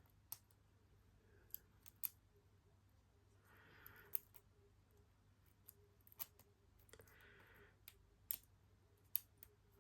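Quiet, scattered metal clicks of a lock pick probing the pins of a Squire LN4 brass padlock's five-pin tumbler mechanism under a tension wrench, a few clicks sharper than the rest. A soft hiss comes twice, about three and a half and seven seconds in.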